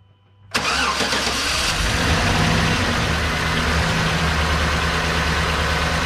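2011 Chevrolet 1500's 5.3-litre V8 starting suddenly about half a second in, then idling steadily with its valve cover off and the rocker arms exposed. The active fuel management lifter on cylinder 4 has collapsed, so that cylinder's rocker arm stands still and the cylinder misfires.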